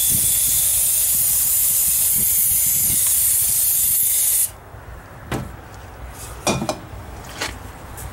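Aerosol brake cleaner spraying in a steady loud hiss into the metal bowl of an oil bath air filter, flushing out the old oily crud. The spray cuts off suddenly about four and a half seconds in, followed by three light knocks.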